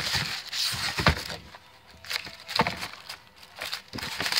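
Hands rummaging in a cardboard shipping case: cardboard flaps and plastic wrapping rustling and crinkling, with a sharp knock about a second in and another a little past the middle.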